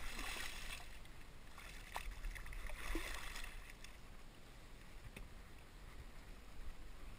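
Striped bass splashing at the water's surface against a boat's hull, in two spells: one at the start and another about two seconds in.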